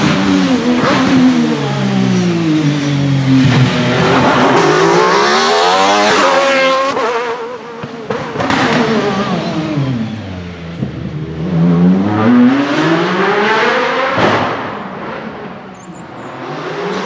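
1996 Alfa Romeo 155 V6 TI DTM race car's six-cylinder engine at high revs. Its pitch climbs and drops several times as it accelerates and slows. There is a sharp crack about eight and a half seconds in and another about fourteen seconds in.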